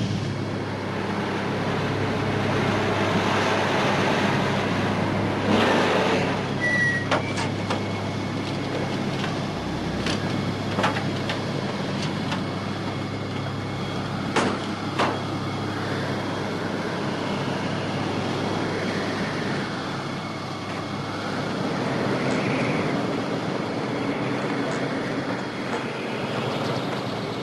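Strong wind driving a sandstorm, with the steady drone of off-road vehicle engines under it. A few sharp knocks, like vehicle doors, come through in the first half.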